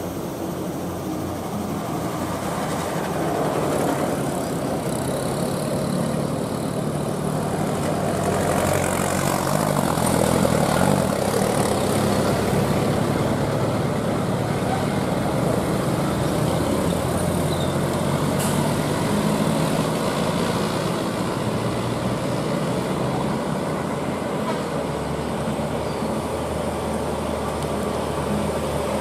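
Heavy diesel trucks climbing a steep hairpin, their engines running steadily under load and getting louder over the first ten seconds or so as a DAF CF tractor unit comes up toward the bend.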